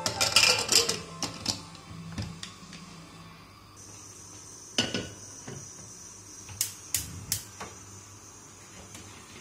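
Metal clatter and clicks of a pressure cooker lid being fitted and locked shut, then scattered clanks of cookware on a gas hob, with three sharp clicks close together past the middle.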